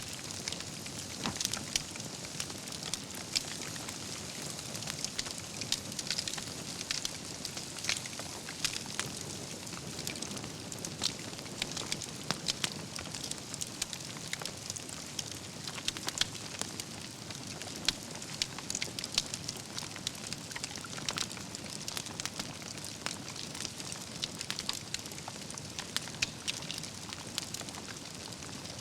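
Wood campfire burning: dense, continual crackling with frequent sharp pops from the burning logs over a steady low hiss of the flames.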